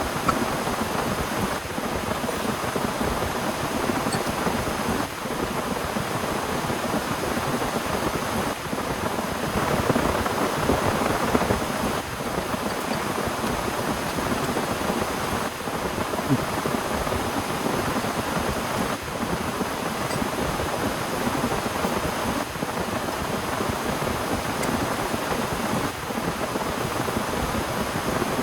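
Heavy rain falling steadily, a dense patter that swells a little about ten seconds in.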